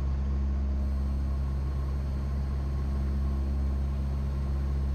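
Cessna 172's piston engine and propeller droning steadily, heard inside the cabin.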